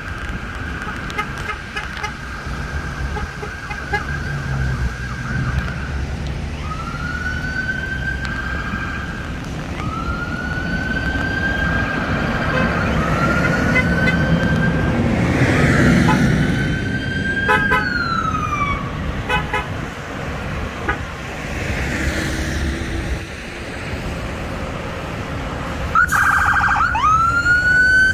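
Police car sirens: a steady held tone first, then a series of rising wails with a falling sweep about two-thirds of the way through, and a quick yelp near the end, over the low rumble of passing bus engines.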